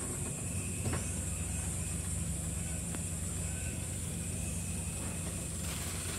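A small tour boat's outboard motor running steadily at low speed, an even low hum. A steady high-pitched hiss runs under it.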